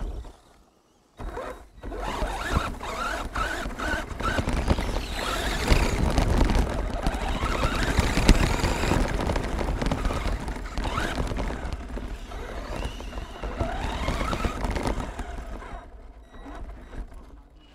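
Redcat Volcano RC truck driving, heard from a camera mounted on it: its motor rising and falling in pitch with the throttle over the rattle of tyres on grass and gravel. It starts about a second in and fades away near the end.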